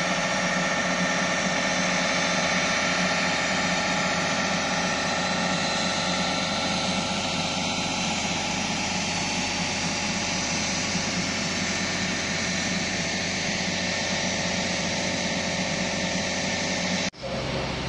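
DR2800 diesel multiple unit idling, a steady engine hum and hiss with several constant tones from its diesel engines and cooling fans, holding level with no revving.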